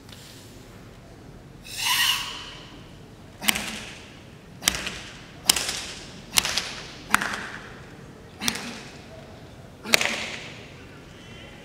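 Open-hand slaps on a bare-chested karateka's tensed body during a Sanchin shime test, which checks how firmly the stance and muscles are held: seven sharp smacks roughly a second apart, each ringing briefly in the hall. About two seconds in, before the slaps, there is a short forceful hissing exhale.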